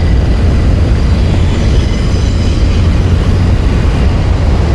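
Loud, steady rumbling rush of fast-flowing river water around a wading angler's legs, heard on a body-mounted camera's microphone.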